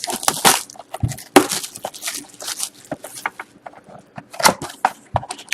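Hockey card hobby box being opened by hand and its foil packs taken out: a quick, irregular run of crackles, rustles and taps of cardboard and pack wrappers.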